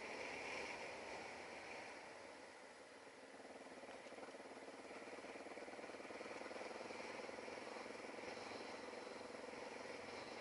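Motorcycle engine running as the bike rides along a paved road, with wind and road noise. The sound eases off a little about a quarter of the way in, then picks up again and holds steady.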